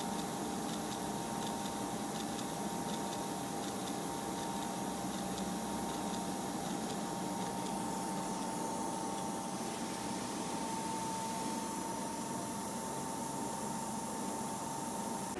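Lathe running, turning a steel electric-motor rotor shaft without cutting while its runout is checked with a dial indicator: a steady machine whine of two close tones over a hiss, with faint ticking in the first few seconds.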